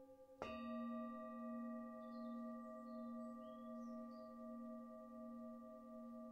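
Crystal singing bowls ringing. About half a second in, a bowl is struck and rings out loudly with a steady tone and a slow wavering pulse, over the softer ring of bowls already sounding.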